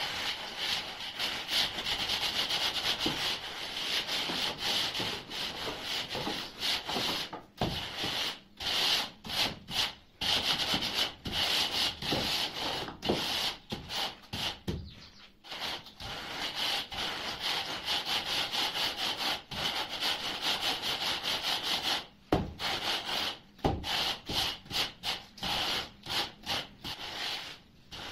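A metal screed bar scraped back and forth across a gritty sand-cement mortar bed, a rasping scrape in repeated strokes with short pauses between them, as the mortar is levelled into a floor base for tiling.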